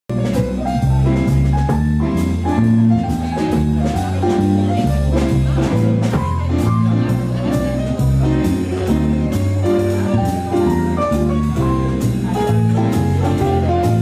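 A small jazz band playing live: steady low bass notes about two a second and evenly spaced cymbal strokes keep the beat under a melody.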